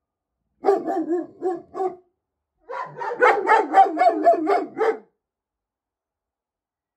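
German Shepherd barking: a run of about four barks, a short pause, then a longer, faster string of barks.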